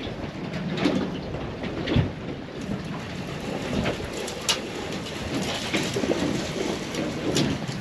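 Water splashing in irregular bursts as a hooked salmon thrashes at the surface while being netted beside the boat, over a faint steady low hum.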